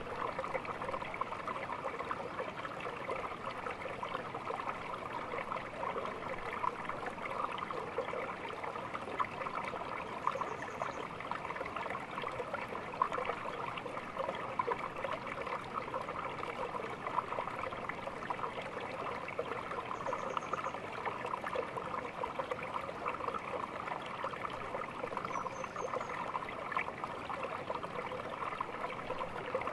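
Small stream babbling and trickling steadily.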